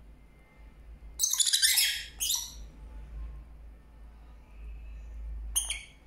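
Rosy-faced lovebirds giving sharp, high-pitched squawking calls. A loud burst of chatter comes about a second in, a shorter one follows just after two seconds, and a brief call comes near the end.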